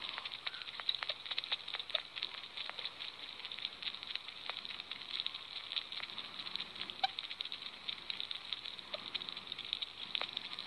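Sugar gliders giving a steady stream of rapid, soft clicks with a few sharper ticks scattered through, the sound the uploader calls happy sugar glider sounds.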